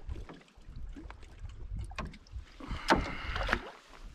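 Sounds of moving about in a canoe on the water: scattered light knocks against the hull, and a louder rush of water with clicks about three seconds in.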